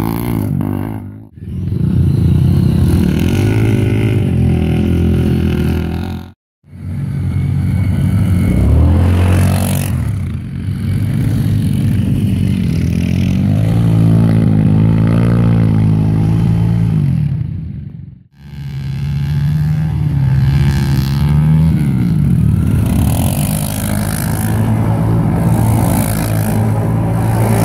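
ATV engines revving and accelerating, their pitch climbing and falling as the quads are throttled hard. The sound cuts off abruptly three times and picks up again.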